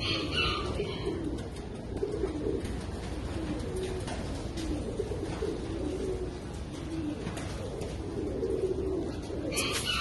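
Pigeons cooing, one low, wavering coo after another. Short higher-pitched sounds come in near the start and again near the end.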